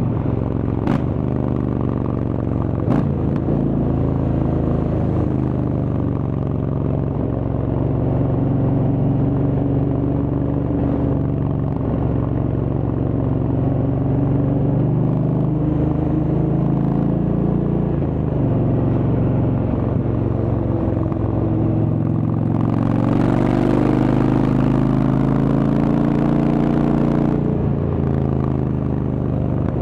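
Indian Chieftain's Thunderstroke V-twin engine running through a Freedom Performance exhaust while riding, its note rising and falling with the throttle. From about 23 to 27 seconds in, the engine pulls harder and climbs in pitch, with more wind rush.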